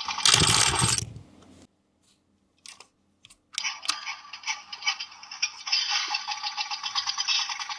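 A toy's small electric motor and gears whirring with a fast, even pulse, starting with a loud rattling burst. It cuts out for about two seconds, leaving a few clicks, then starts running again.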